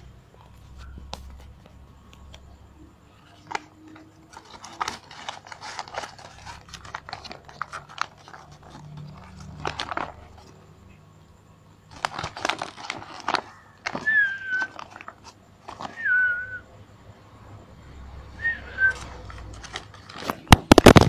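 A plastic bag crinkling and rustling in bursts as it is handled over a cat. Three short high squeaks, each falling in pitch, come in the second half, and a few sharp knocks near the end.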